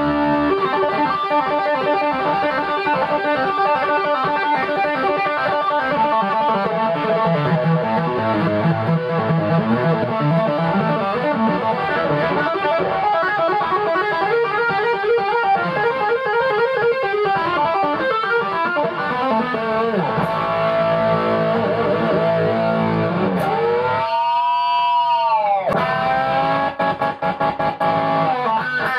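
Vintage Metal Axxe V-shaped electric guitar played with distortion through an amp: fast lead lines and runs, with one note swooping down in pitch and back up about 24 seconds in.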